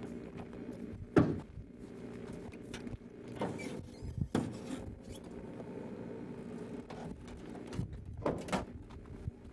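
Metal clunks and knocks from the back of a Ford Bronco as the swing-away spare-tire carrier and tailgate are unlatched and opened: a sharp knock about a second in, then several more, over a steady low hum.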